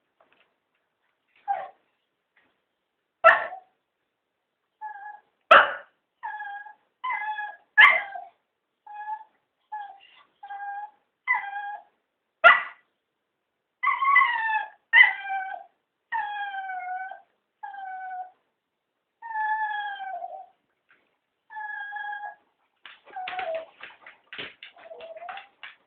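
Cocker spaniels whining and yipping in a long series of short, high cries, with a few sharp barks mixed in. Several of the later cries fall in pitch. The dogs are begging to be taken for a walk.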